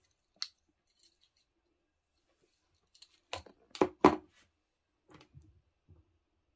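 A sharp click, then a cluster of three louder knocks about three to four seconds in, followed by a few faint taps, like small hard objects being handled.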